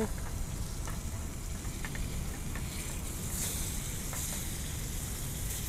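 Meat sizzling in a small hot pan on a portable gas stove, sticking to the pan, with a few light clicks of metal tongs turning it. A steady low rumble runs underneath.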